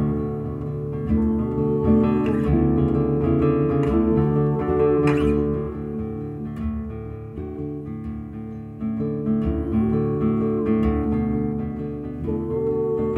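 Slow instrumental music led by a plucked acoustic guitar, its notes ringing on and changing every second or so.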